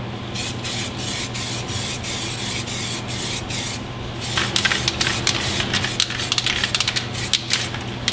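Spray can of zinc weld-through primer spraying, a steady hiss broken into many short bursts after a brief pause a little before halfway.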